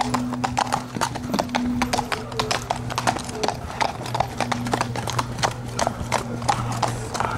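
Hoofbeats of several horses trotting and cantering past close by, a dense, irregular clatter of hoof strikes.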